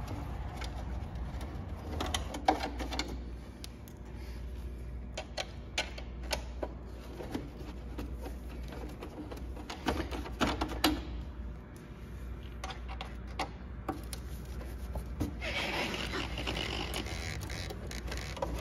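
Scattered small metallic clicks and taps as a 1/4-inch Allen wrench turns bolts out of a car's wheel-well panel by hand, over a low steady rumble. A stretch of hiss comes in about fifteen seconds in and dies away near the end.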